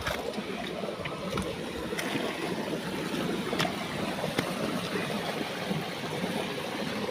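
Steady rush of running water, with a few faint clicks scattered through.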